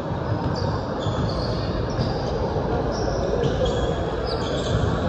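Basketball game sounds on a hardwood gym floor: a ball bouncing and sneakers squeaking in short, high chirps as players run, over a steady background of voices in the hall.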